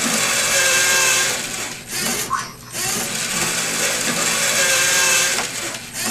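LEGO Mindstorms NXT servo motors and plastic gears whirring as the colour sorter turns its four-compartment tray and ejects balls. It runs in two long stretches with a brief pause about two seconds in.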